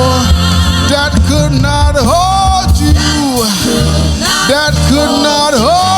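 Worship band music with a singer's voice sliding up and down through long held notes over a steady bass line.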